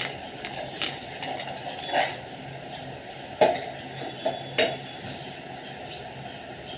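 Wire whisk clinking and scraping against a stainless-steel bowl while besan pakora batter is mixed: a handful of sharp metal clinks, the loudest about three and a half seconds in, over a steady background hiss.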